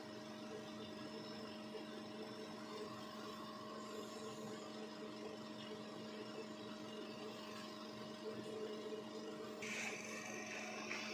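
ICU ventilator running, a steady machine hum and whir with constant tones. A hiss with a higher steady tone starts about a second before the end.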